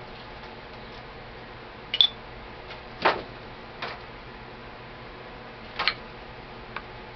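A few sharp clicks and clinks of metal rifle parts and tools being handled while an AK-47 is taken apart: a bright, ringing clink about two seconds in, then four softer knocks spread over the next few seconds, over a steady room hum.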